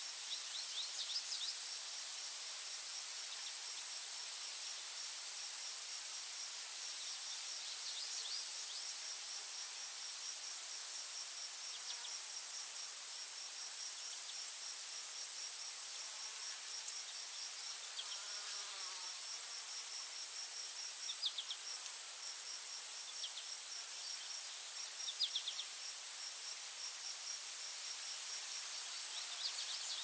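Insects calling: a steady high-pitched drone with a rapid, evenly pulsing chirp beneath it. Short clusters of quick high bird chirps break in now and then.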